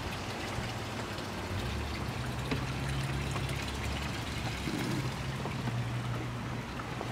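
A steady low engine hum over a continuous hiss, the hum growing stronger about one and a half seconds in.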